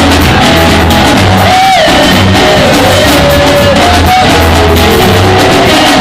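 Loud live praise music from a church band, with a repeating bass line and singing voices over it.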